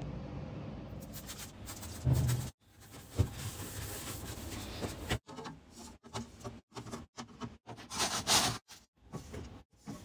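Items being handled and set into a mini fridge: soft knocks and rubbing of plastic water bottles against the fridge shelves, in short clips cut together. A louder rustle comes about eight seconds in.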